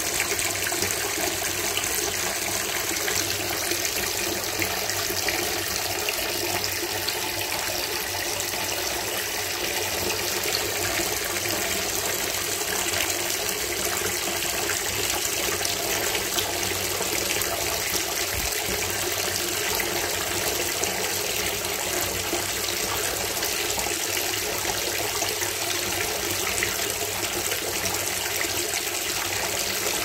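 A thin stream of cold water running steadily from a bathtub tap into the tub.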